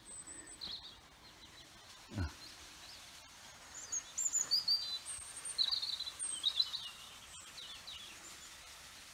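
Small songbirds chirping and singing in short high trills, busiest in the middle of the stretch, over a faint steady hiss. A single short sound falling in pitch is heard about two seconds in.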